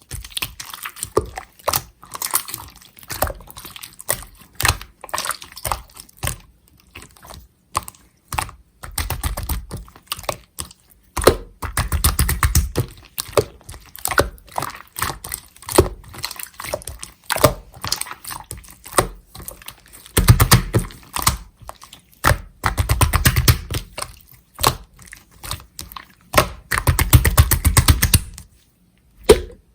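Clear slime being squished, poked and stretched by hand, giving rapid sticky clicks and small air-bubble pops. The clicking comes in dense clusters with short pauses between them.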